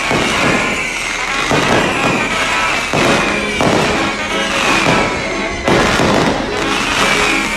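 Firecrackers and fireworks going off in rapid, dense succession, bang after bang.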